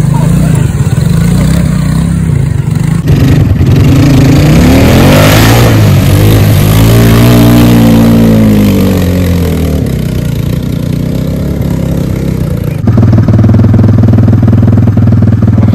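Kawasaki ATV engine revving in floodwater, its pitch climbing and then falling over several seconds. Near the end it changes abruptly to a steady, lower-speed run.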